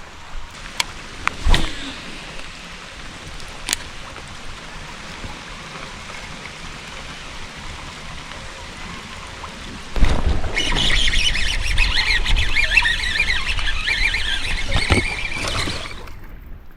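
Quiet running-creek background with a few sharp clicks, then about ten seconds in a sudden loud splashing for about six seconds: a hooked rock bass thrashing at the surface on a topwater lure.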